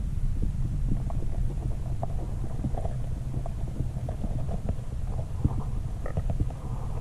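Underwater sound picked up by a camera submerged in a pond: a steady low muffled rumble with many small faint clicks and ticks scattered through it.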